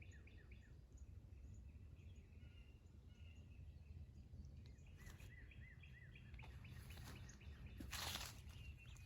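Faint songbird calls, a short arched chirp repeated in quick runs of three or four, over a low steady rumble of background noise, with a brief rustle of brush near the end.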